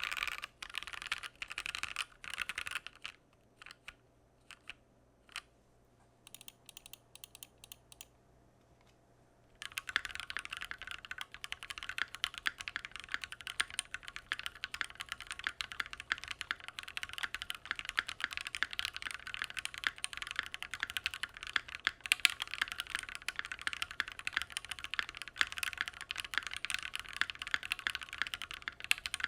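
Typing on a Keychron Q1 mechanical keyboard, a gasket-mounted board with an aluminium plate: a few quick bursts of keystrokes, then several seconds of only scattered single key presses, then fast continuous typing from about ten seconds in.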